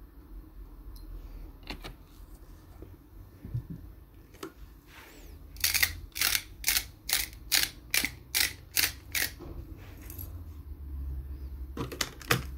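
Hand-twisted salt grinder over a dish of olive oil, about ten quick crunching turns in a steady rhythm, then a couple of clicks near the end.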